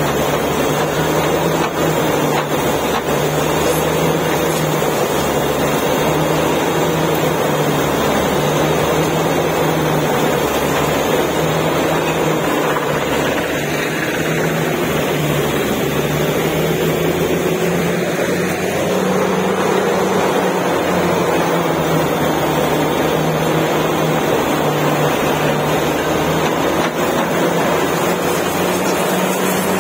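Truck-mounted borewell drilling rig running steadily: the drone of its engine and air compressor, with the rush of compressed air blasting mud and dust out of the bore.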